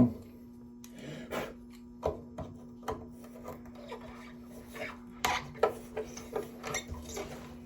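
Scrap metal pieces being handled and worked apart by hand: irregular clicks, knocks and scraping, about one or two a second, over a steady low hum.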